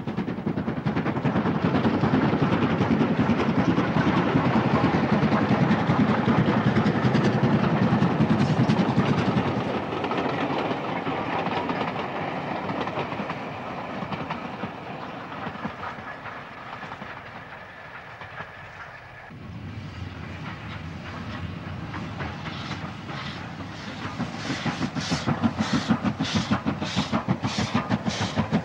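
LMS Black Five 4-6-0 steam locomotive hauling a passenger train: a dense rumble of the running train that fades away over the first half. Then the locomotive's exhaust chuffs come in at a steady beat of about two a second and grow louder near the end.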